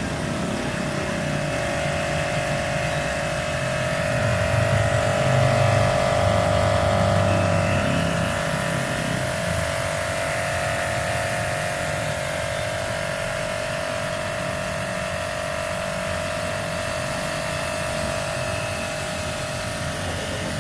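Prescott P-JW13+ 1400-watt electric high-pressure washer running: a steady motor-and-pump whine over a hiss, with a low rumble that grows louder a few seconds in, then settles.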